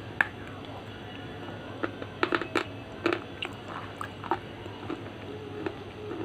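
A slate pencil bitten off with a sharp snap, then crunched between the teeth: a run of loud, crisp crunches about two seconds in, then scattered softer crunches as it is chewed.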